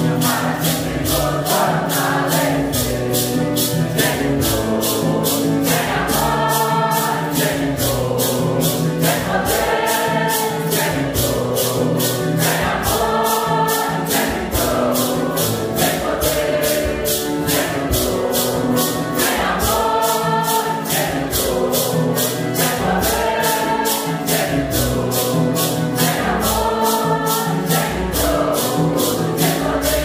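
Santo Daime hymn sung in unison in Portuguese by a mixed group of men and women, with maracás shaken in a steady beat and acoustic guitars accompanying.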